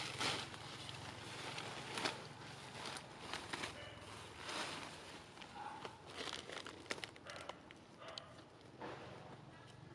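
Irregular rustling and crackling of leaves and grass, in quick short bursts of varying loudness.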